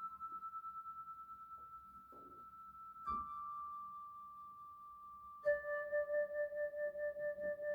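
Slow meditation music of long, held, pure tones, one note sliding into the next with no beat; a lower note comes in about five and a half seconds in.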